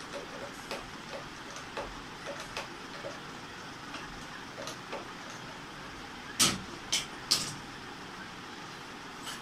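Light clicks and taps of hands working on a sewing machine's add-on motor and its metal mount, with three sharper knocks in quick succession a little past the middle.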